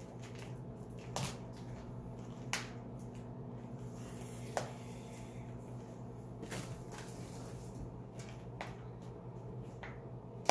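Hands working all-purpose potting soil into a clear plastic pot: soft rustling of the soil with light clicks and taps of the plastic, spaced a second or two apart, over a steady low hum.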